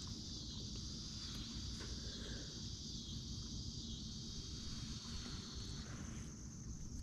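Steady high-pitched insect chorus, fading out near the end, over a low rumble.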